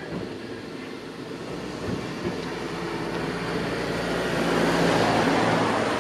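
A road vehicle drives past, its engine hum and tyre noise swelling to a peak near the end.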